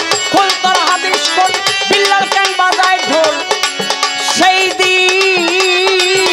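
Bengali baul folk song played live: a man singing over tabla-style hand drums and melodic accompaniment, with the drum strokes keeping a steady beat.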